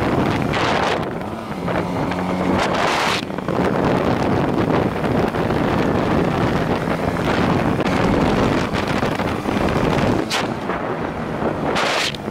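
Wind rushing over the microphone of a motorcycle-mounted camera, with the BMW R1100RT's flat-twin engine running steadily underneath at cruising pace. A few brief stronger gusts of wind noise come through.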